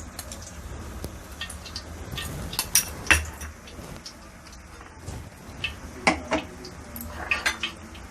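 Kitchen utensils clinking and knocking against pans and containers, a few scattered strikes, the sharpest about three seconds in and again around six to seven and a half seconds in, over a low steady hum.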